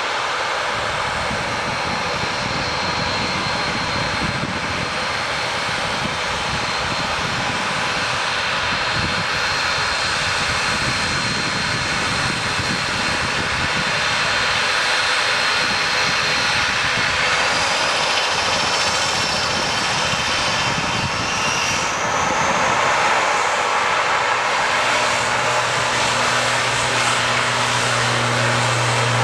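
Airliner engines running amid a steady hiss of heavy rain. A thin high whine rises in pitch about two-thirds of the way through, and a steady low hum starts near the end.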